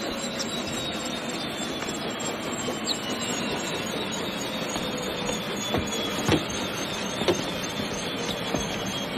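Helicopter running on the ground: a steady rush from the turbine and turning rotor, with a high whine that slowly falls in pitch. A few knocks and thumps stand out, the loudest about six seconds in.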